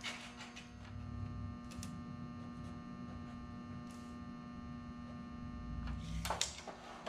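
Steady electrical mains hum, buzzy, with a few faint scrapes and knocks of handling near the end.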